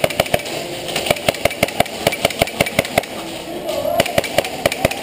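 Airsoft gun firing a rapid, uneven string of single shots, about four to six a second, with a short pause a little after three seconds in.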